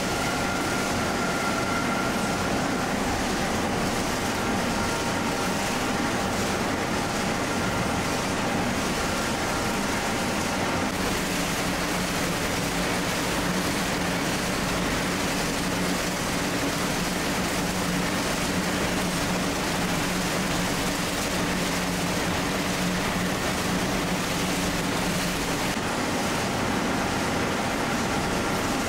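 Steady mechanical noise of factory machinery and fans running, an even rushing hum with a few faint steady tones. Its tone shifts about eleven seconds in and again near the end.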